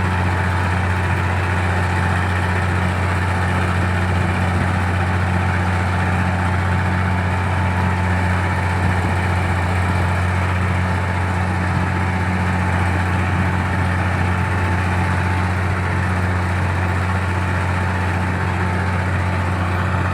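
Komatsu D60-8 bulldozer's diesel engine running at a steady speed: a deep, even drone that holds its pitch and level throughout.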